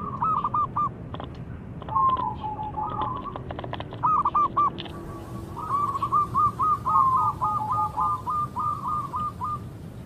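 Zebra dove (perkutut) cooing: a few short groups of quick, arched coo notes, then from about halfway a long run of rapid notes strung together, the drawn-out song that keepers call gacor.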